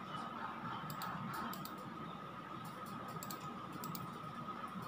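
Computer mouse clicking several times at an irregular pace, over faint hiss and a thin steady hum.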